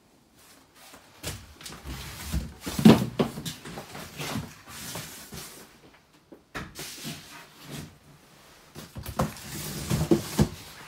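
Knocks, clicks and rattles of a door being handled in a small, echoey bathroom, in two bouts. The sharpest knocks come about three seconds in and again near the end.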